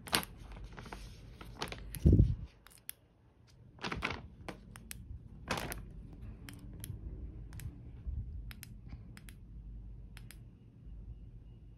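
A kitten scrambling on a bedspread and against a woven shopping bag while chasing a laser dot: soft rustles and scattered light clicks, with one low thump about two seconds in.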